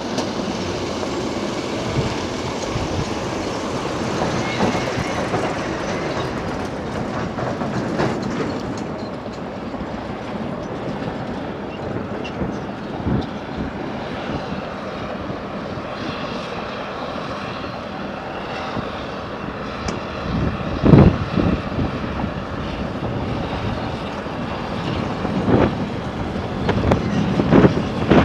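Caterpillar D7E diesel-electric crawler dozer running steadily as it pushes earth, with the clatter of its tracks. Several sharp, loud clanks come in the last third.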